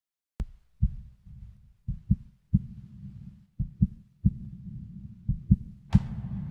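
Heartbeat sound effect: low double thumps, lub-dub, repeating about every second and a half to two seconds over a low rumble. A harder, sharper hit comes near the end.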